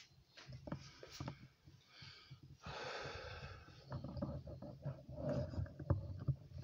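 A person's breath: a short, noisy, snort-like breath about three seconds in, among scattered light clicks and taps.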